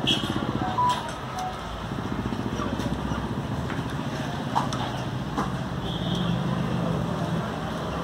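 An engine idling steadily, with a few sharp metallic clicks scattered through it from hand tools being worked at a scooter's front wheel hub.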